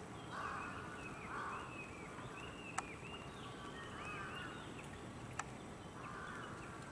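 Faint bird calls: a string of short chirping calls, with a few lower, harsher calls near the start and again near the end. Two sharp clicks come about three and five and a half seconds in.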